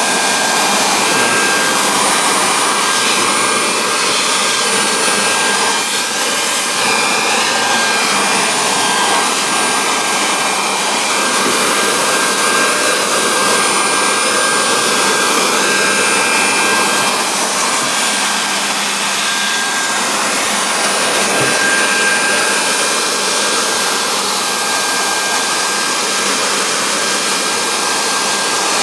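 Small electric leaf blower running steadily: a loud rush of air with a thin, steady motor whine on top, blowing leaves and dirt out of a car's engine bay.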